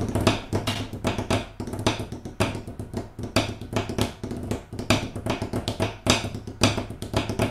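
A pair of drumsticks played in rapid strokes with some louder accents on a thin sheet of EVA foam glued over a hard wooden desk tray, used as a practice surface that gives the sticks rebound.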